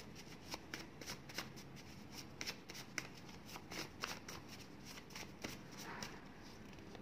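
A deck of divination cards being shuffled by hand: a quick run of faint card flicks and snaps, several a second, stopping about six seconds in.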